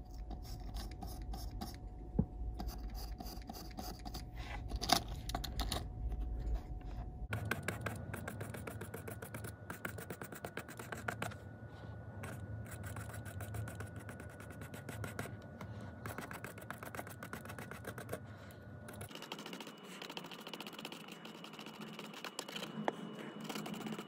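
A fibre pen scrubbed in quick short strokes over the side of an N gauge model wagon, a fine rapid scratching as it rubs back the weathering to let the colour show through.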